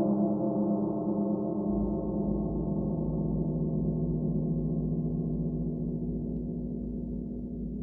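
A 60-inch rain gong ringing on after a strike, its many overtones slowly fading, and a deep low rumble joins about two seconds in.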